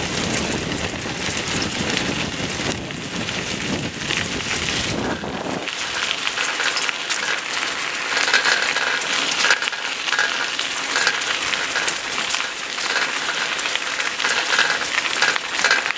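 Bicycle tyres rolling over a gravel trail strewn with dry leaves: a steady crackling crunch. Wind rumbles on the microphone for the first five seconds or so.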